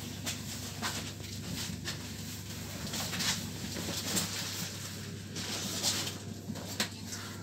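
Interior running noise of an EN81 electric multiple unit in motion: a steady low hum with irregular clicks and knocks.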